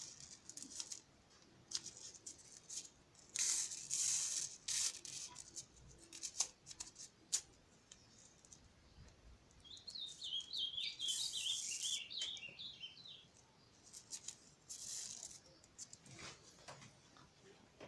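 Scissors cutting and handling umbrella fabric: short irregular snips and rustles. About ten seconds in, a bird twitters in a quick run of chirps for about three seconds.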